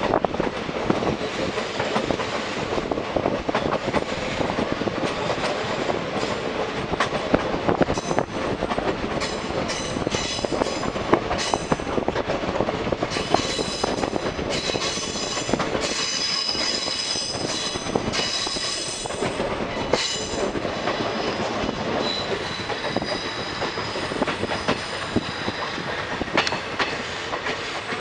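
Passenger train running along the track, with continuous rumble and wheel clatter, heard from an open coach door. Through the middle of the stretch the wheels squeal high-pitched on the curve, fading to a fainter squeal later on.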